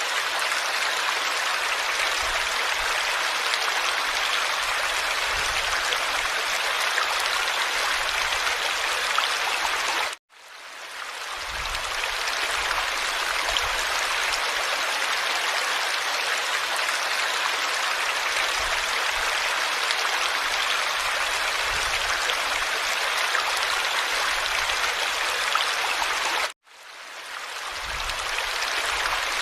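Steady rushing water, like a flowing stream. About ten seconds in and again near the end, the sound suddenly cuts out and fades back in over a second or two.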